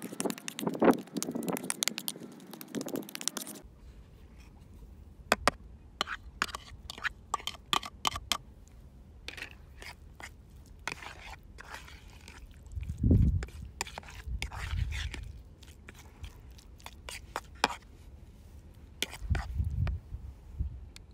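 Metal fork mashing avocado and scraping against a plastic bowl: dense wet scraping at first, then scattered clicks and short scrapes as chopped dried tomatoes are stirred in. A couple of low bumps come near the middle and near the end.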